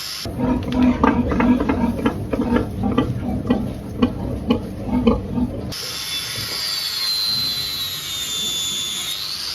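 Pigs grunting in quick repeated bursts for about five seconds, then a sudden change to a steady high mechanical whine that wavers slowly in pitch.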